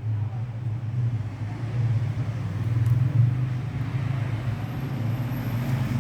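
Beyblade spinning top whirring in its stadium with a steady low hum that starts abruptly.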